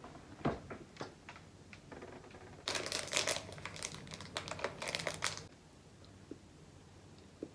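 A few light taps and clicks, then a chocolate bar's wrapper crinkling for about three seconds as it is unwrapped.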